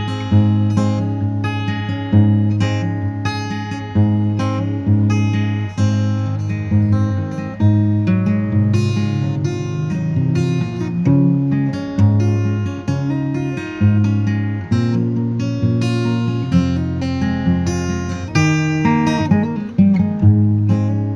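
Background music: a strummed acoustic guitar playing chords with a steady rhythm.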